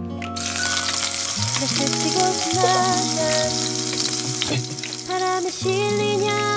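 Tofu frying in hot oil in an electric nonstick pan: a steady sizzle that starts abruptly just after the start, with background music.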